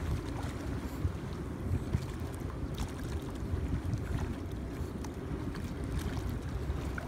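Wind buffeting the microphone over the steady rush of shallow river water, with a few faint splashes.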